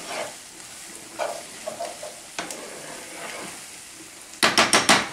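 Sweet corn frying in margarine in a skillet with a soft, steady sizzle while a spoon stirs it. Near the end comes a quick run of five or six loud knocks, the spoon striking the pan.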